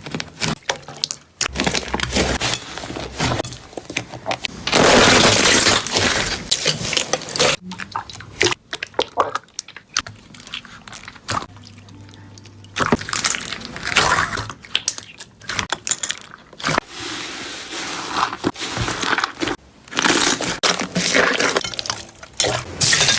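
Slime being squished and worked by hand: bursts of wet squishing with sharp crackling pops, loudest about five seconds in and again in the second half, quieter in between.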